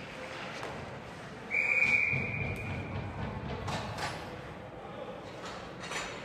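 Hockey referee's whistle blown once, a long steady blast of about a second and a half that stops play, over steady arena noise. A few sharp knocks follow.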